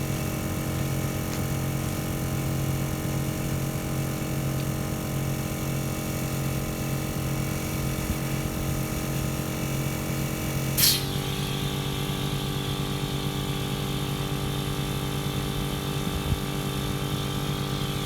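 Smittybilt 2781 12-volt portable air compressor running steadily under load while filling a 40-inch tire. About eleven seconds in there is a sharp click, after which the running note shifts slightly and a high hiss joins in.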